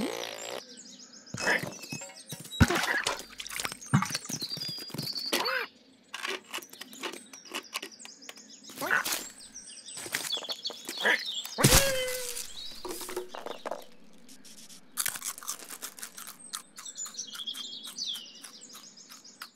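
Cartoon sound effects of a cat chasing a squirrel: a busy run of scrabbling, knocks and thumps with short squeaks and cat-like vocal sounds, over birds chirping in the background. One loud thump comes about twelve seconds in.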